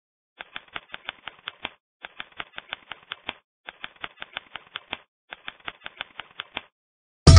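Typing sound effect: four quick runs of key clicks, about seven or eight keystrokes each, with short pauses between runs. Loud electronic music with heavy bass cuts in suddenly at the very end.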